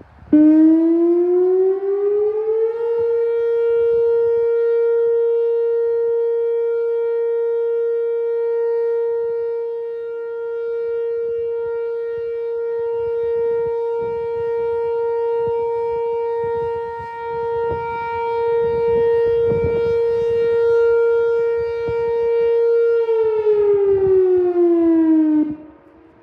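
Whelen electronic outdoor warning (tornado) siren sounding a steady alert tone during a siren test. The pitch rises over the first couple of seconds and then holds steady for about twenty seconds, growing louder and softer as the rotating head turns. Near the end the pitch glides down and the tone cuts off.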